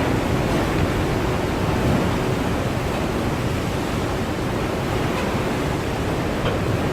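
Storm-driven waves breaking in a steady wash of surf, with wind.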